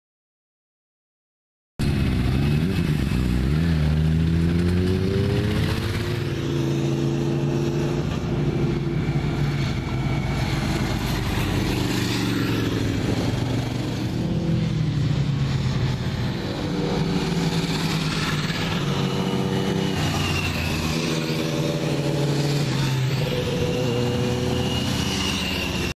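Silent for about the first two seconds, then several sport motorcycles riding through tight track corners, their engines revving up and down as they pass one after another.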